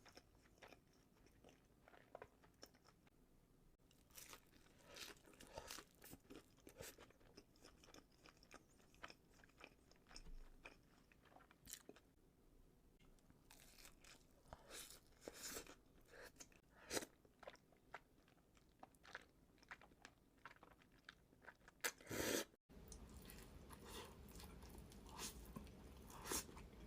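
Quiet, close-miked chewing and biting of sushi: irregular wet clicks and crunches from the mouth. About 22 seconds in, the sound cuts out for a moment and returns over a steady background hiss.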